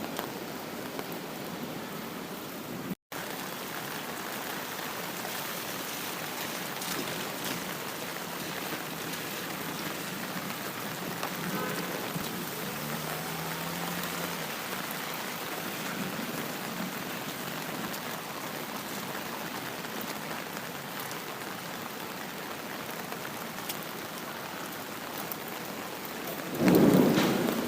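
Steady rain falling, with a momentary dropout about three seconds in. Near the end, a loud rumble of thunder swells up.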